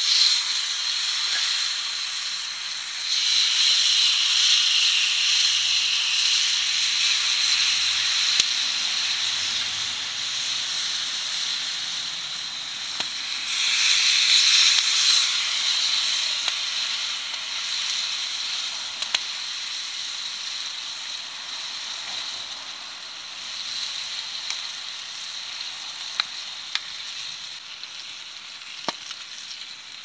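Marinated beef sizzling in a hot steel frying pan over a wood fire. The sizzle flares up loudly as new pieces go into the pan, about 3 seconds in and again around 13 seconds, then slowly dies down, with a few sharp clicks.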